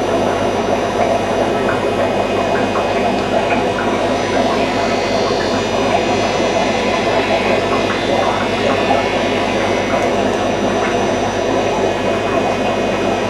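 Steady electrical hum under a constant noisy whir from running aquarium equipment.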